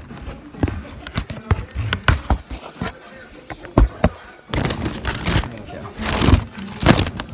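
Handling noise from a cardboard shoebox and its tissue paper: light knocks and taps, then two louder stretches of rustling, one about halfway through and one near the end.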